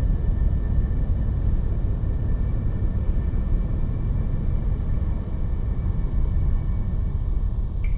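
A steady low rumble with faint thin high tones above it, which cut out near the end.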